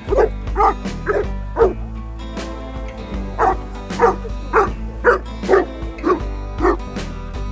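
A dog barking over and over in short barks, about two a second, with a pause of about a second and a half after the first few. Background music plays underneath.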